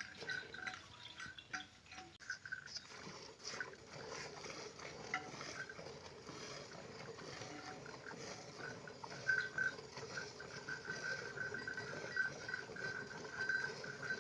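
Cow being milked by hand: streams of milk squirting rhythmically into a pail.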